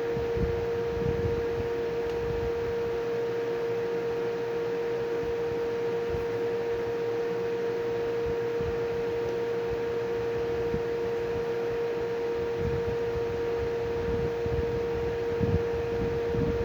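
A steady, unchanging tone with fainter higher tones above it, over an uneven low rumble.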